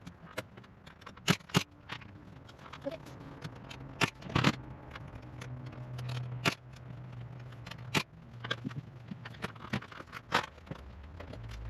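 Irregular sharp knocks and clatter of carpentry on wooden roof framing, about a dozen strikes at uneven spacing over a low steady hum.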